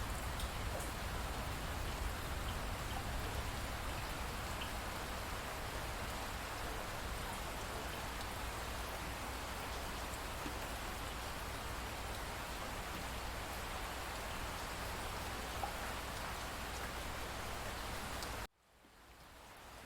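Steady rain falling, an even hiss with scattered drops pattering. The sound cuts out abruptly near the end and fades back in.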